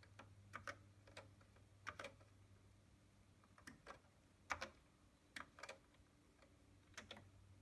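TRS-80 Model III keyboard keys pressed one at a time, slowly: about six separate keystrokes, each heard as a quick pair of clicks. A low steady hum runs underneath.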